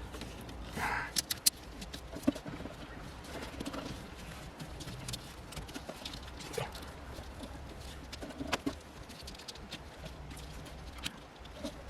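Scattered light clicks and knocks as taped wiring and plastic parts are handled and pushed back into place, with a faint steady hum underneath.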